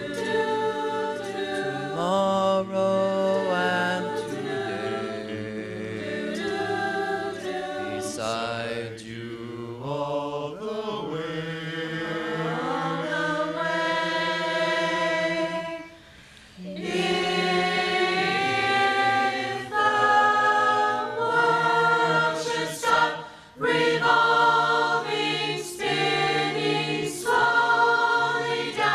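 A large mixed choir singing, with a brief break about halfway through.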